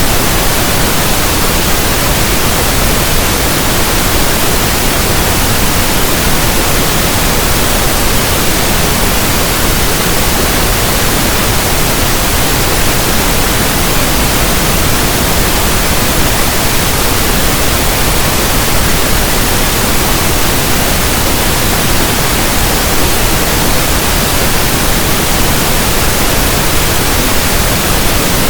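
Steady, unchanging pink noise: a soft, even static hiss like a radio tuned between stations.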